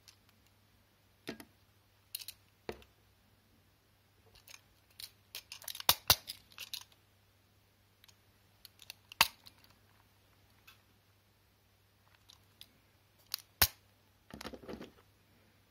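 Scattered small clicks and taps of a Tomica die-cast articulated Mercedes-Benz Citaro bus model being handled and flexed at its joint, with a flurry of clicks about six seconds in, sharp single clicks near nine and thirteen seconds, and a brief scraping rattle near the end.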